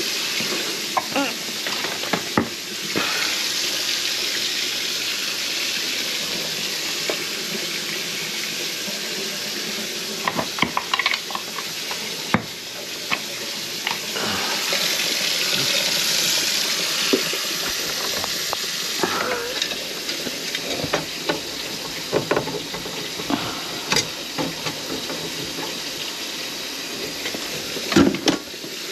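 Kitchen faucet running water into the sink and down a drain line just cleared of grease, a steady rush with scattered clinks and knocks.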